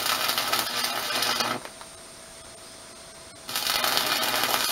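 Electric arc welding on steel rebar: two spells of the arc's dense crackle, the first about a second and a half long, the second starting about three and a half seconds in.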